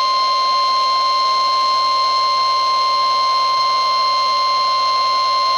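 NOAA Weather Radio-style warning alarm tone: one loud, steady electronic tone at a single pitch, held without a break, signalling that a weather warning broadcast is about to follow.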